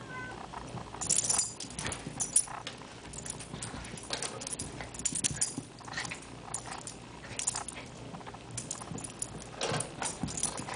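A small dog and a cat play-fighting: a string of short, quick scuffling and snuffling noises at an uneven pace, with light jingling among them.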